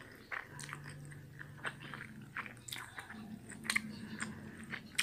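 A person chewing a mouthful of pempek telur, the soft fish-and-tapioca cake, with scattered small wet mouth clicks. A faint low hum comes twice, near the start and again after the middle.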